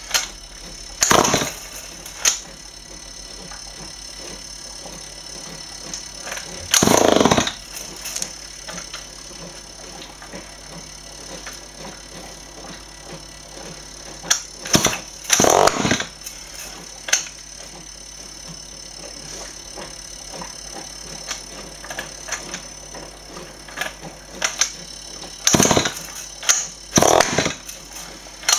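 Small two-stroke engine run on HHO hydrogen gas, pull-started again and again: several short bursts of cranking and sputtering that never settle into steady running, the longest about seven seconds in. The engine won't keep going, which the builder puts down to it drawing in too much hydrogen.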